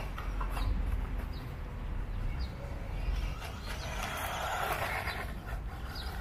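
Small electric RC buggy with a 390 brushed motor running on asphalt: a rough motor-and-tyre hiss that swells for a second or two about four seconds in, over a steady low rumble.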